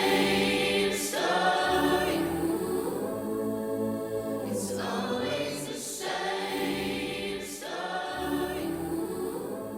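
A slow song plays, with layered sung harmonies held in long chords and a repeating chord pattern. It fades gradually toward the end.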